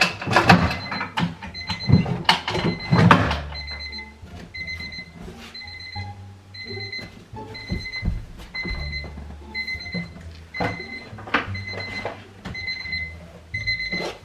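Electronic alarm clock beeping, a steady run of short, high beeps repeating about every half second. Loud knocks and handling noises break in over the first few seconds and again briefly later.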